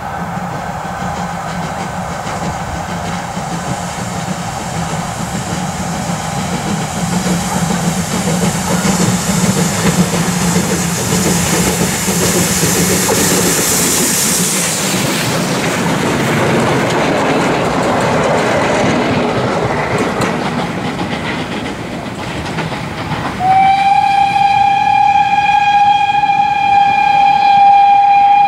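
Pt47 steam locomotive, a 2-8-2 passenger engine, running past with its train: steady rail and engine noise that builds to a hiss of steam as it comes closest around the middle. About five seconds before the end a loud, long, steady whistle blast starts with a slight rise in pitch.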